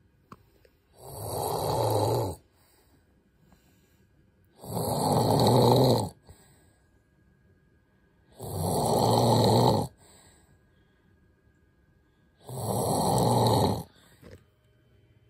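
A man snoring hard in his sleep: four loud snores, each about a second and a half long, coming roughly every four seconds, with quiet breathing pauses between.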